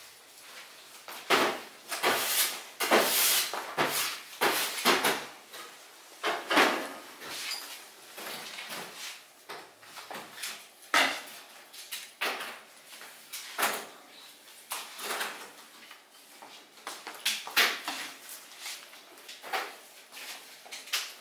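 A mass of pulled sugar candy being worked by hand over a hook on a post: it is stretched, slapped and folded over. This gives a series of irregular noisy strokes, roughly one every second or two, densest in the first few seconds.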